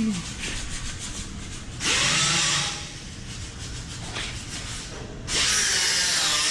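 A power sanding tool run in two short bursts, spinning up and down, abrading the steel door shell's edge to bare metal.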